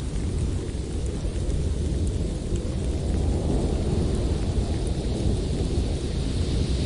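Blizzard wind blowing in a forest: a steady low rumble that swells about halfway through, with a fainter high hiss of wind over it.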